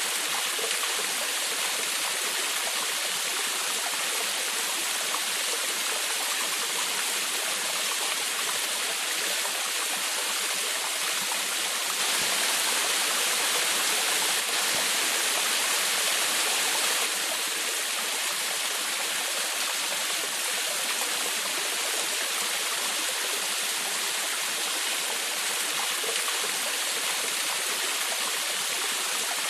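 Waterfall splashing and rushing water in a steady, even hiss, a little louder for a few seconds around the middle.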